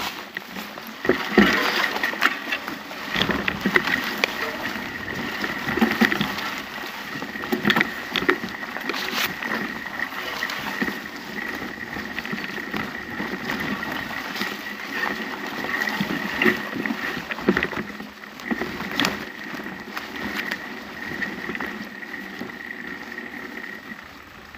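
Bicycle ridden along a leaf-covered forest path: tyres rolling over leaves and twigs, with frequent clicks and rattles from bumps and a faint steady high whine.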